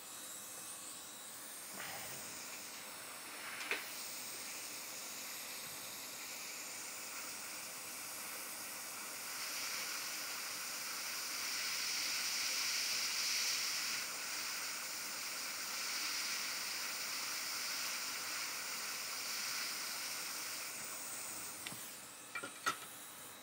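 Hot air rework station blowing a steady hiss of air onto the logic board to heat off the backlight LED driver chip. The hiss grows louder for about ten seconds in the middle, with a couple of small clicks.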